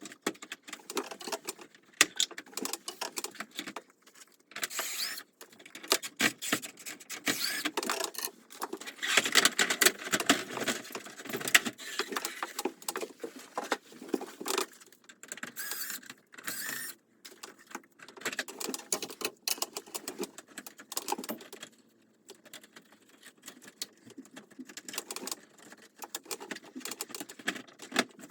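Irregular clicking, tapping and rustling of parts and tools being handled while an air conditioner is cleaned, in short bursts with brief pauses.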